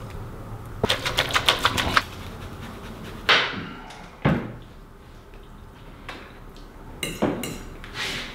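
Clatter of kitchen utensils and cutlery: a quick run of about ten sharp clicks and taps about a second in, a swish and a single knock a few seconds later, then forks clinking on plates near the end.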